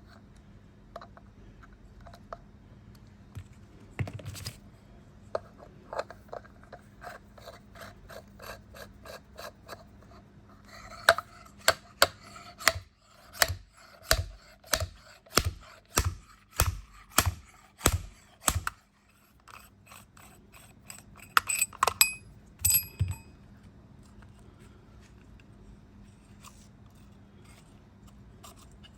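Hand-tool clicks and knocks from disassembling a motorcycle radiator fan: scattered clicks, then a run of evenly spaced clicks about one and a half a second lasting about seven seconds, then a short flurry of clicks.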